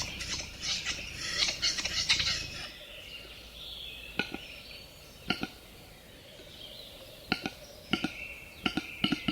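Male western capercaillie displaying: sharp knocking clicks, spaced about a second apart through the second half, with a stretch of hissing, scraping notes, the whetting phrase of its song, about one to two seconds in.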